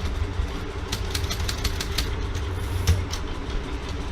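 Manual typewriter keys clacking: a quick run of about eight sharp strikes over a second, then a couple more about a second later, over a steady low rumble.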